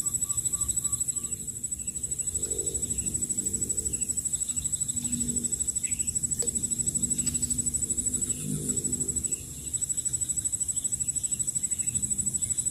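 Outdoor ambience: a steady, high-pitched insect drone with a fast even pulse, broken off briefly about two-thirds of the way in. Low cooing calls rise a few times underneath it.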